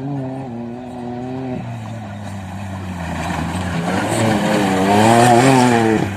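Engine of an off-road vehicle running under changing throttle. Its pitch drops about a second and a half in, then wavers up and down as it grows louder, with a rising rushing noise toward the end.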